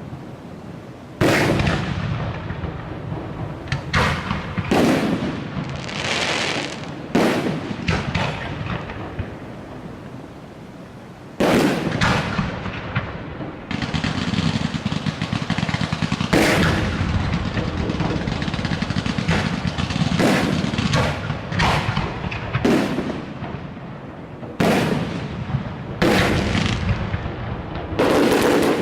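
Aerial fireworks bursting overhead: a string of loud, irregular bangs, each trailing off in a long echoing rumble, with crackling between them that thickens into near-continuous crackle in the second half.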